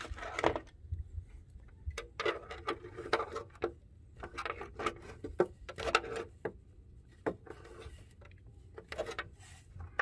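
Hard plastic clicking and scraping as an engine oil filler cap and its sleeve are worked and pried off the filler neck with a screwdriver, in a string of irregular clicks and rubs. The old cap is coming off to be replaced.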